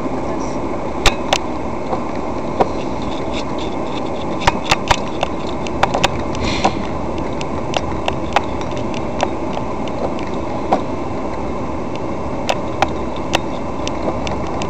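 Car driving along a wet street, heard from inside the cabin: steady engine and tyre noise, with irregular sharp clicks and ticks scattered throughout.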